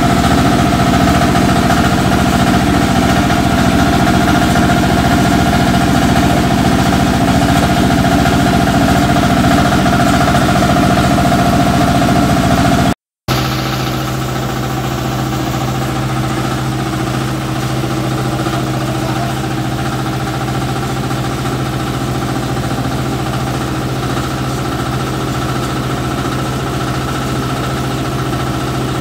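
Small single-cylinder stationary engine running steadily, driving a belt-driven rice milling machine, with a continuous mechanical hum. The sound drops out briefly about 13 seconds in, then carries on at a lower, steadier pitch.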